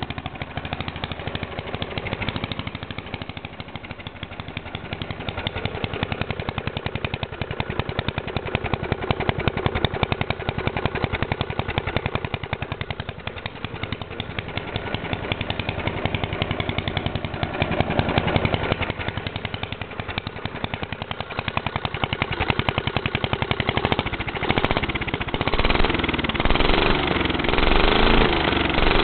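Tecumseh lawnmower engine running loud through a dual exhaust pipe, with a rapid staccato firing. Its speed swells and falls in waves, and it wavers unevenly near the end. The owner says a bad carburettor keeps it from reaching full revs.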